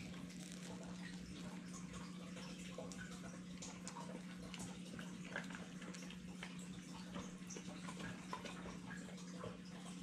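Faint wet smacking and small clicks of a pit bull chewing bread from a hand, over a steady low hum.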